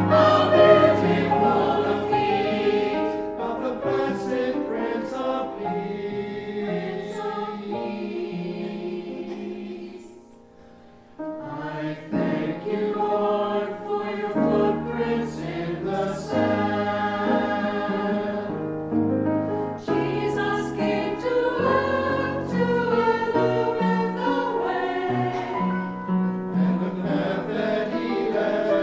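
A choir singing a hymn with instrumental accompaniment, pausing briefly about ten seconds in before the next phrase begins.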